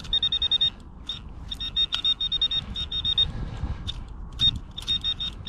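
Handheld metal-detecting pinpointer beeping in fast, high-pitched pulses that come in bursts as it is probed around a hole and closes on a shallow target. Low rumbling of soil and hands being worked around it.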